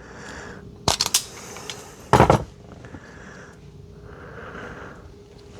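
Wire strippers working the insulation off a wire: a quick cluster of sharp clicks about a second in, then a louder snap about two seconds in, with quiet handling rustle between.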